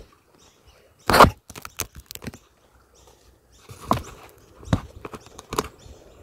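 Scattered rustles and light knocks of kayak gear and packaging being handled, with one short, louder burst of noise about a second in.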